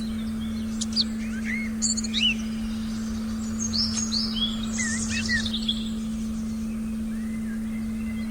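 Forest birds chirping in short, quick whistled notes that slide up and down, busiest from about one to six seconds in, over a steady pure tone from a meditation frequency track.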